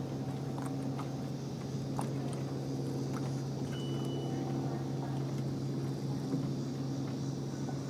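A steady low machine hum with a few overtones, plus a few faint ticks and one short high beep about four seconds in.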